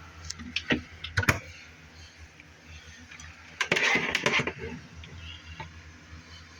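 A few sharp clicks and taps, then a brief rustle about four seconds in, over a faint low steady hum.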